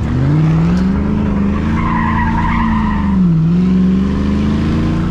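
Chevy pickup truck engine revving hard under load; the revs climb, dip briefly a little past the middle and climb again near the end. A wavering high squeal sounds over it for about a second and a half in the middle.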